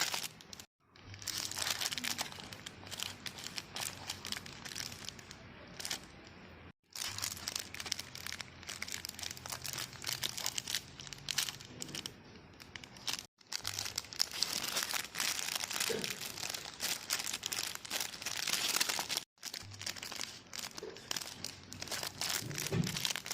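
Mini silicone pop-it keychain fidget toy being pressed, its bubbles giving a dense run of small soft pops and clicks with a crinkly texture. The sound breaks off sharply three times, as at splices between clips.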